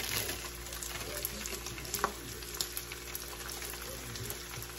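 Sliced steak, onions and green peppers sizzling steadily in a hot pan with cheese laid over them, with a few faint crackles.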